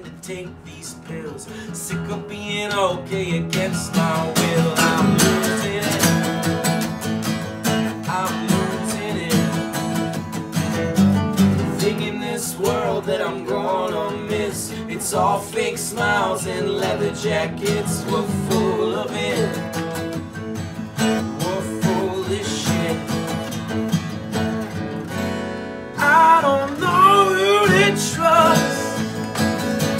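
Live acoustic rock song: two acoustic guitars strummed with a male lead voice singing over them. About 26 seconds in, the playing and singing grow louder.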